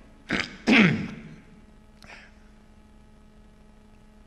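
A man coughing twice in quick succession from a dry throat, the second cough louder and trailing off with a falling voice.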